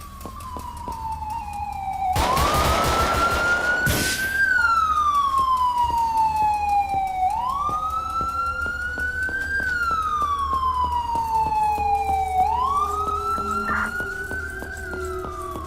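Police car siren on the wail setting, its pitch sweeping up quickly and then sliding slowly down, about once every five seconds. About two seconds in, a loud rushing noise covers it for some two seconds.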